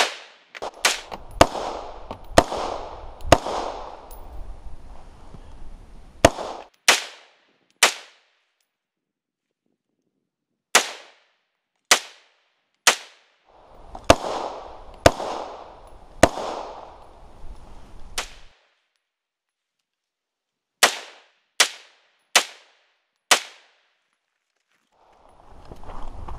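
AR-15 rifle firing single shots in groups of two to five, roughly a second apart, with pauses between groups; about eighteen shots in all, each with a short echo.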